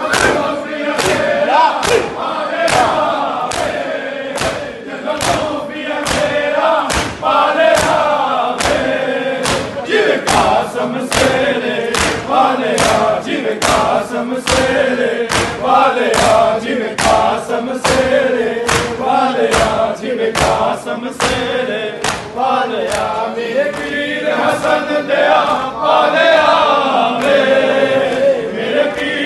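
A group of men chanting a noha lament in unison, with many hands slapping on chests in a steady beat (matam).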